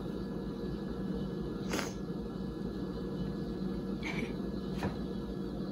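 Steady low room hum, with three soft brief clicks as a long cake knife is worked under the frosted hearts on top of a cake.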